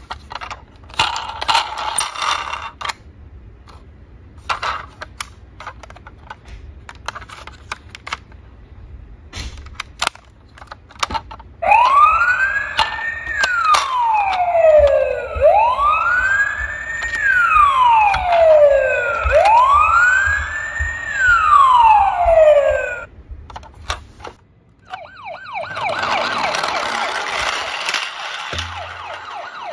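Electronic siren of a toy ambulance wailing: three rise-and-fall sweeps, each climbing quickly and sliding slowly back down, coming after several seconds of plastic clicks and knocks from the toy being handled. Near the end a faster, pulsing siren sound follows.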